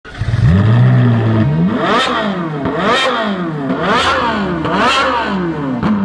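Car engine starting, idling for about a second, then revved hard five times about once a second, each rev rising and falling sharply in pitch with a crack at the top.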